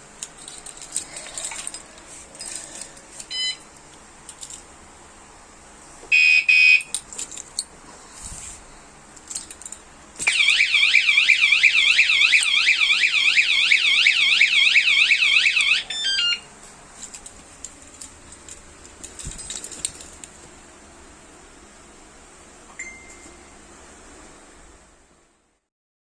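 An e-bike anti-theft alarm, set off by handling. It gives a short loud beep burst about six seconds in. About four seconds later it sounds a loud, fast-warbling siren for about five and a half seconds, then stops. Small clicks and handling noise come before and after.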